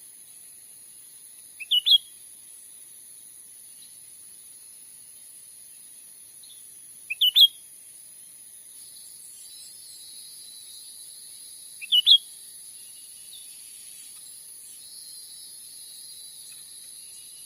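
Cucak ranting bird calling: three short bouts of two or three quick, rising high notes, about five seconds apart. A steady high insect drone runs underneath.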